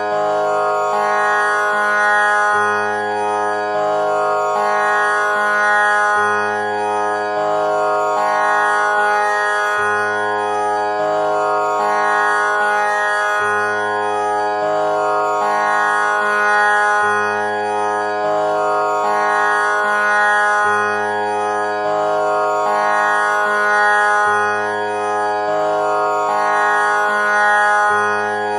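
Background instrumental music: sustained drone-like tones over a slow bass line that steps to a new note every second or two.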